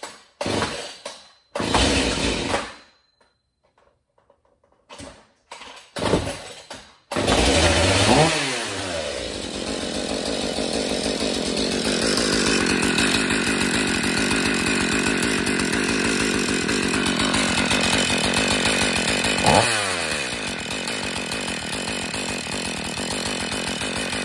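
Husqvarna 340 two-stroke chainsaw being started: several short bursts, then it catches about seven seconds in and keeps running. It is blipped and drops back, held at a higher speed for a few seconds, then blipped again. It runs without bar or chain as a test of the newly replaced oiler.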